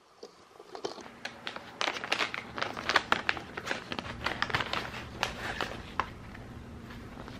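Plastic bags and mask wrappers crinkling and rustling in quick, irregular crackles as they are handled, with a mask packet being cut open with scissors.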